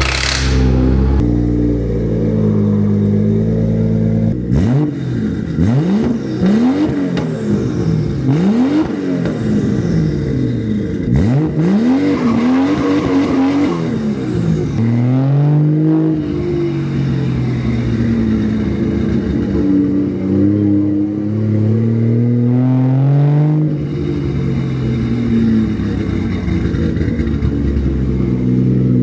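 BMW B58 turbocharged inline-six, swapped into an E24, running under load. Its pitch climbs and drops sharply several times early on, as with revving up and shifting gears, then settles to a steadier run with one more climb about three quarters of the way through.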